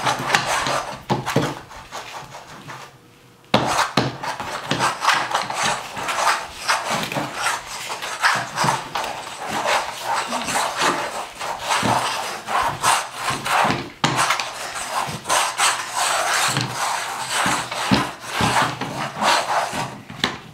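Small toy train pushed rapidly back and forth across a paint-covered canvas, its wheels rolling and scraping in quick, irregular strokes. The strokes pause briefly about two seconds in, then resume.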